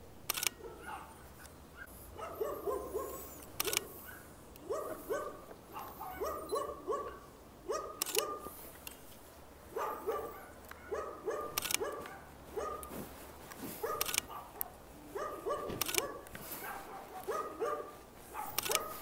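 A dog barking repeatedly in quick runs of two to four barks, with a sharp click every couple of seconds.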